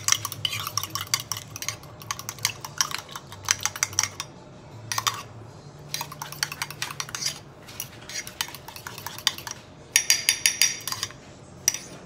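Fork beating egg mixture in a ceramic mug: rapid clinking of the tines against the mug in several bursts with short pauses, with a run of louder, ringing clinks a little after ten seconds.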